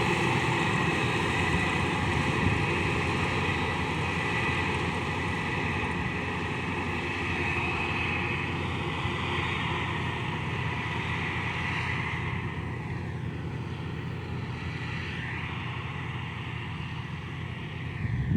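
Kartar DLX combine harvester running steadily, a mechanical drone with a high whine over it, slowly growing fainter.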